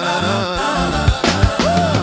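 Instrumental break in a Christian R&B/gospel song: bass and sustained keys under a lead melody line that bends in pitch, with a steady kick-drum beat.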